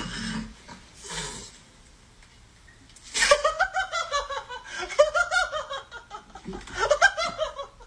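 A person laughing hard in rapid high-pitched bursts, starting about three seconds in and going on almost to the end. Before it come a couple of short breathy hisses.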